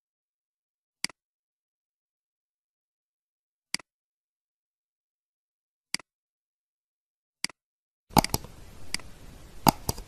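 Computer mouse clicks: four single sharp clicks spaced one to two seconds apart. Near the end comes a denser burst of clicks over a hiss, lasting about two seconds.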